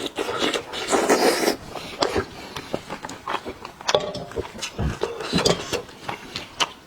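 Close-up eating sounds from spicy sheep's head: wet smacking clicks of chewing and sucking at the meat, with noisy slurps, the loudest about a second in.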